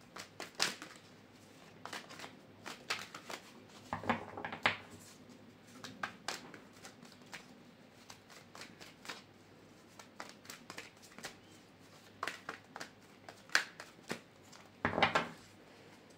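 Tarot cards being shuffled and handled by hand: irregular papery flicks and clicks, with denser flurries about four seconds in and near the end.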